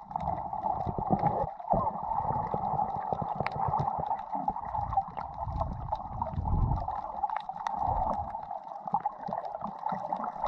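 Underwater sound picked up by a submerged camera over a coral reef: muffled, uneven rumbling and sloshing of water moving around the camera, with many small scattered clicks.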